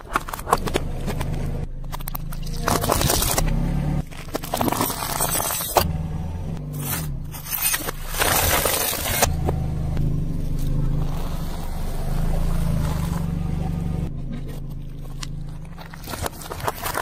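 Car tyre rolling slowly over and crushing a series of objects, with crunching, cracking and squashing sounds: plastic pudding cups near the start, then a plastic wall clock cracking and crunching about eight seconds in. The car's engine runs at low revs underneath.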